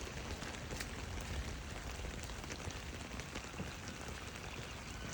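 Steady watery hiss of running floodwater and wet ground, with a low rumble underneath.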